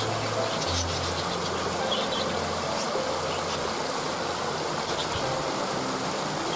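Waterfall rushing steadily, with small birds chirping in short calls above it and low held tones underneath.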